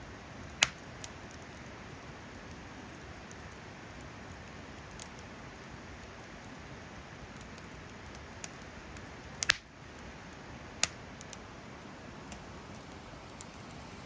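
Campfire of split firewood crackling with a few sharp pops: one just under a second in, a close pair about two-thirds of the way through and another a second later, with fainter ticks between. Under it is a steady rush of river water.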